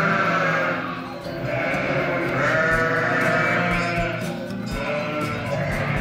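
Sheep bleating, with music playing.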